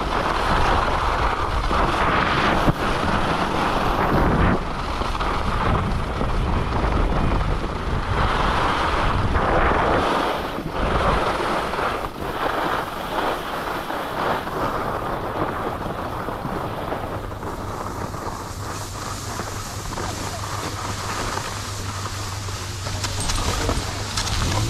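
Skis sliding and scraping over packed snow while wind rushes over the microphone at speed, surging with each turn. About halfway through the rush dies down as the skier slows and glides to a stop. A low steady hum starts near the end.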